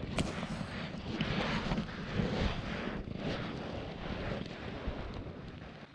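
Wind buffeting the microphone as a rough, steady rumble and hiss, with a few scattered knocks and rustles.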